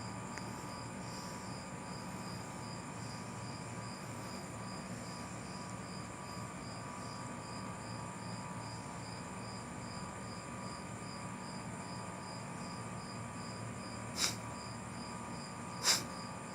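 Cricket chirping evenly, about three chirps a second, over a steady background drone, with two sharp clicks near the end.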